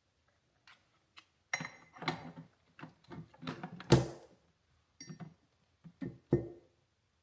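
Background music of plucked, guitar-like notes: a run of separate picked notes and chords, each struck and fading quickly.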